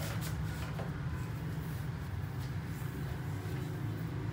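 Steady low hum, with faint rubbing and light handling sounds as a tablet's glass touch panel is wiped and turned over.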